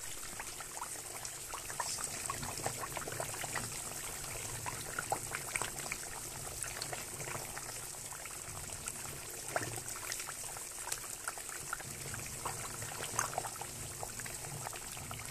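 Pot of khlii, dried spiced meat in water and fat, boiling hard: a steady bubbling hiss full of small pops and crackles.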